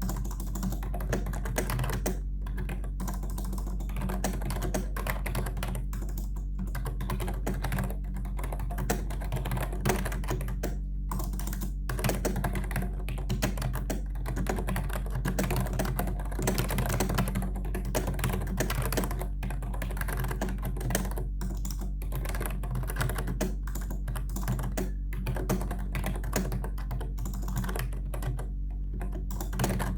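Fast continuous typing on a Logitech K120 membrane keyboard: dense clattering keystrokes with a few brief pauses, over a steady low hum.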